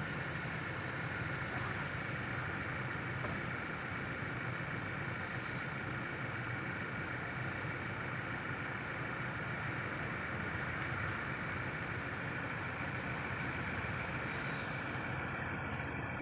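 Steady low engine hum, like a motor idling, with an even higher drone over it and no change in pitch.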